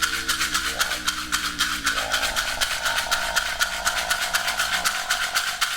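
A hand rattle shaken quickly and evenly, about eight to ten shakes a second, while a voice tones along: low held notes at first, then a higher steady tone from about two seconds in.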